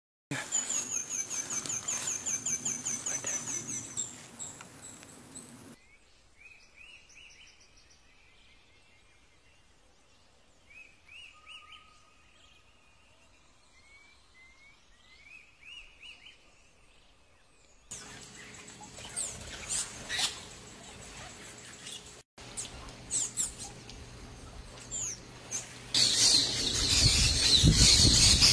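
Wild birds calling and singing. A fast run of high repeated notes comes first, then sparse short chirps, and a louder, noisier stretch near the end.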